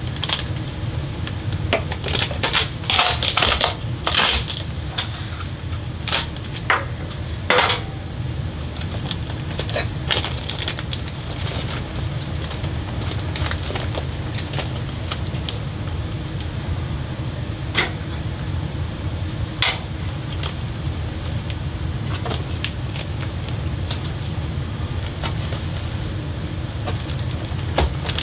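Aluminium foil ducting tape crinkling and crackling as it is handled and pressed around the bathroom fan's duct joint. The crackles come in clusters for the first eight seconds or so, then only now and then, over a steady low hum.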